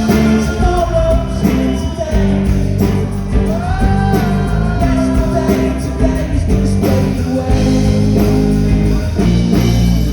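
Live pop-rock band playing, with guitars, bass and drums, between sung lines of the song.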